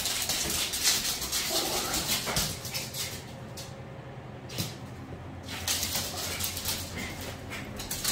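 Two puppies scuffling in play on a laminate floor: quick clicking and scrabbling of claws, with a few brief puppy whimpers. The clicking thins out for a couple of seconds in the middle, then picks up again.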